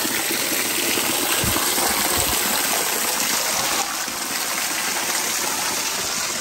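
Small waterfall splashing steadily onto rock, a thin stream of falling water; the splashing drops a little in level about four seconds in.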